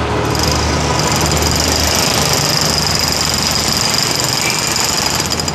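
Electric jackhammer breaking up a concrete kerb, hammering rapidly and steadily with a high whine, starting just after the opening and stopping abruptly near the end. Traffic rumbles underneath.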